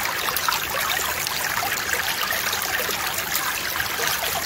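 Creek water running through and around a sluice box in the stream, a steady trickling babble.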